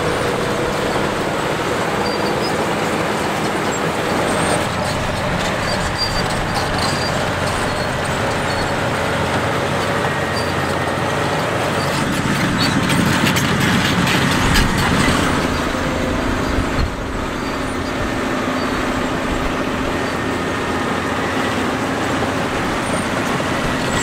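Caterpillar D6 LGP bulldozer's diesel engine running steadily as the crawler pushes a blade-load of gravel and dirt across a driveway.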